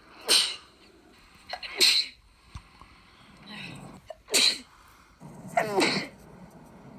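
Repeated sneezing: four loud sneezes in quick succession, with softer ones in between. The last sneeze is drawn out and falls in pitch.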